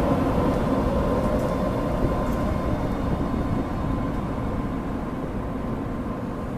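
Passenger train pulling out slowly past: a steady hum from the trailing DC electric locomotive fades as it goes by, then the coaches roll past with a low wheel rumble that slowly gets quieter.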